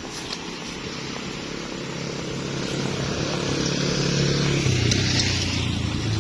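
A motor vehicle approaching on the road, its engine growing louder and passing by about five seconds in, the engine note dropping as it goes past.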